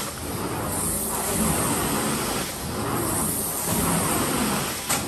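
Carpet cleaning machine running: a steady rushing noise with a high whine that swells and dips every second or so. A short knock comes near the end.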